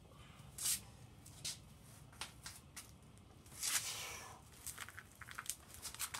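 Short metallic clinks and scrapes, with a longer scrape a little past the middle and a run of quick, light rattling ticks near the end. This is loose broken metal shifting around in the bottom of a blown 7.3 IDI diesel's block and oil pan as the engine is moved.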